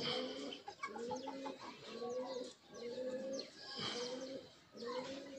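Birds calling: a run of low, arched calls repeated about twice a second, with short high chirps over them.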